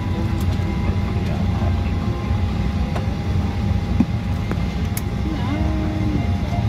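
Boeing 737-800 cabin noise with the engines running at low power on the ground: a steady low rumble with a constant engine whine on top. A single light knock about four seconds in.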